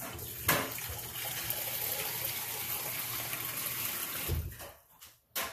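Kitchen tap running steadily for about four and a half seconds, drawing more water for the pot, with a knock about half a second in and a sharp click near the end.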